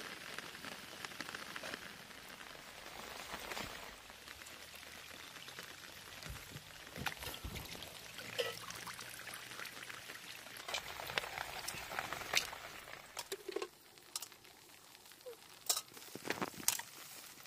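A steady watery hiss, then from about eleven seconds in a run of sharp splashes and drips as hands reach into shallow paddy water.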